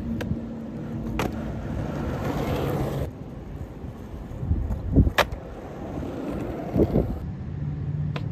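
Skateboard wheels rolling over concrete and asphalt, broken by sharp clacks of the board striking the ground, the loudest about five seconds in and again about two seconds later.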